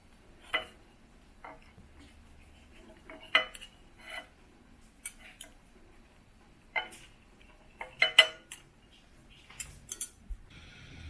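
A dozen or so separate clinks and knocks of hard objects being handled, like tableware being set down or moved. The loudest come a little after three seconds and around eight seconds in.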